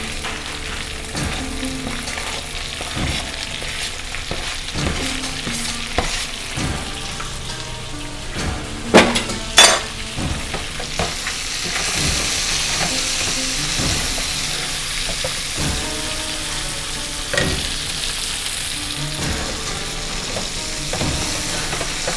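Garlic, ginger and peppers sizzling in hot oil as they are stir-fried; the sizzle grows louder about halfway through. Two sharp, loud knocks sound about nine seconds in.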